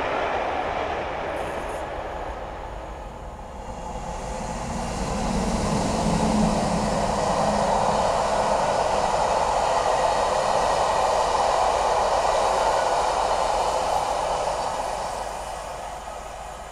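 A train of coaches hauled by two Class 50 diesel locomotives with English Electric 16-cylinder engines, passing at speed. The train noise fades at first, swells from about four seconds in as the locomotives go by, holds loud, then dies away near the end.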